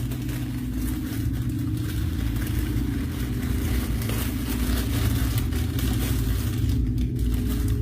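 A steady low mechanical rumble like a running motor, with an even hiss over it.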